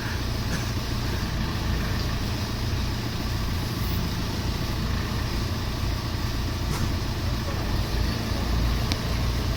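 Engine of a heavy machine, a backhoe or forklift, running steadily with a low rumble.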